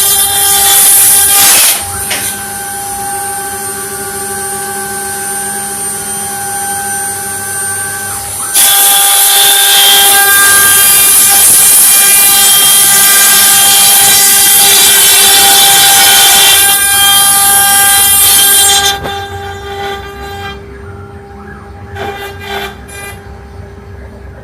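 CNC wood carving router running, its spindle giving a steady whine. Loud cutting noise from the bit in the wood comes in two stretches: briefly at the start, then from about 8 to 19 seconds in. It is quieter in between and after, with a few clicks near the end.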